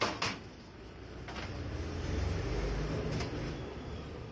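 Empty sheet-steel desktop computer case being handled by a small child: a sharp knock at the start, a few clicks, then a low rumble and rattle in the middle as the case is shaken or shifted.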